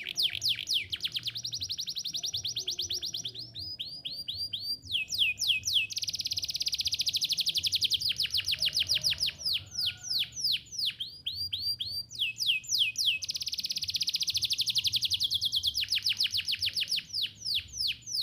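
Domestic canary singing: long, rapid trills of quickly repeated sweeping notes, switching every few seconds between very fast runs and slower, more spaced notes.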